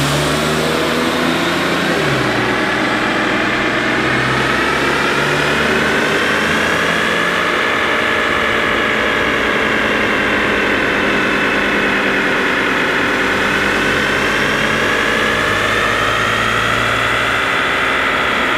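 A 2007 BMW 335i's N54 twin-turbo inline-six with a catless downpipe, driven on a chassis dyno. The engine note climbs, drops about two seconds in as at a gear change, climbs again, then settles to a steady run with a high whine that slowly rises and falls.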